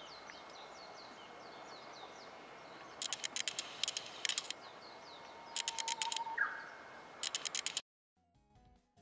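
Birds chirping in short repeated calls over a steady outdoor hiss, with several brief bursts of rapid clicking. The sound cuts off abruptly about a second before the end, when music begins.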